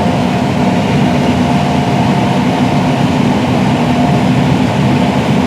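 John Deere S670 combine running steadily while harvesting corn: a constant loud engine and machinery drone with a thin steady whine above it.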